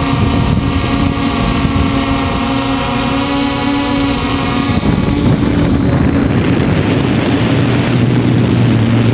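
Hexacopter's electric motors and propellers whirring close to the onboard camera, with wind buffeting the microphone. The even, steady motor tones break up into a rougher rushing sound about five seconds in.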